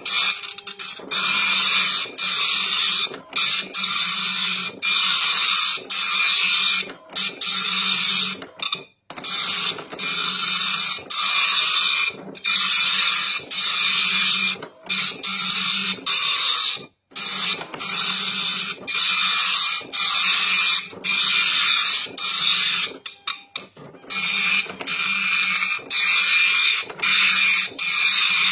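Epson LQ-300+II 24-pin dot-matrix printer printing lines of text: the print head rasps across the page in repeated passes of about a second each, with brief pauses between passes as the line feeds.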